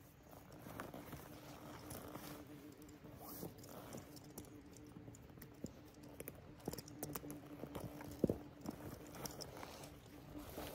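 Close rustling of clothing and brush, with scattered small ticks and crackles, as someone works with his hands at ground level among dry weeds and grass. The sharpest tick comes about eight seconds in. A faint, steady, even-pitched hum runs under most of it.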